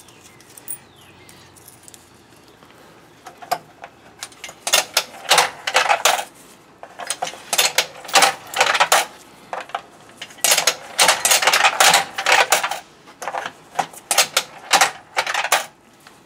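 Quarters clinking against metal in a coin-operated vending machine: clusters of quick metallic clicks and rattles, starting about three and a half seconds in.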